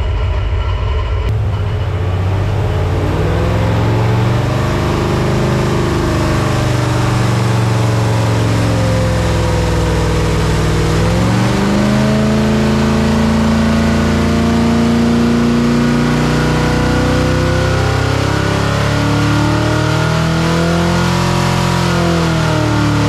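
Ford 400 (335-series) V8 with ported aluminium heads, a hydraulic roller cam and a 750 CFM carburettor, run on an engine dyno. About a second in it goes from a steady run to full load, its pitch climbing slowly through a smooth pull and falling back near the end. This is a power run with the ignition timing advanced.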